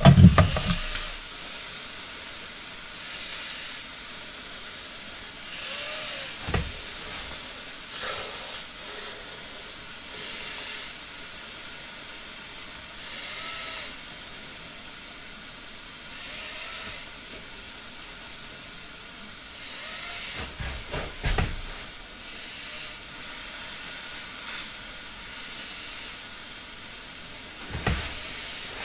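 Venison steak frying in a metal pan on a gas stove: a steady sizzling hiss over lowered heat, broken a few times by short knocks.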